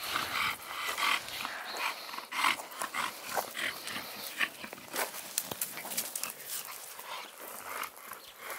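American bully dog panting in quick repeated breaths while walking, with scattered light crackles of steps on dry ground.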